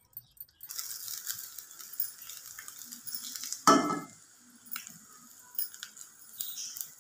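Paratha sizzling as it fries in a nonstick pan, pressed with a silicone spatula. A sharp knock comes a little under four seconds in, the loudest sound, followed by a few light taps.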